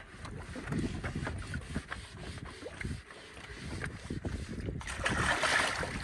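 Water sloshing and splashing as a wet cloth is scrubbed over a truck's mudguard and wheel, with a louder rush of splashing water about five seconds in.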